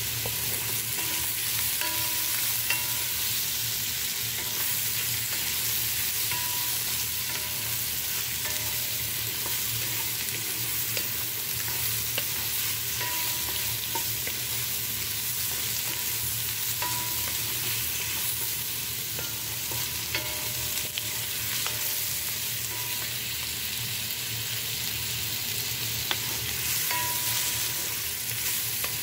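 Sliced bamboo shoots and dried mushrooms sizzling steadily in hot oil in a wok while being stirred with a wooden spatula, with occasional light clicks.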